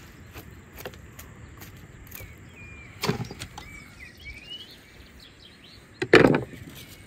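Roast lamb being handled on the table: two thuds about three seconds apart, the second louder, as the meat is set down or moved. Birds chirp faintly in between.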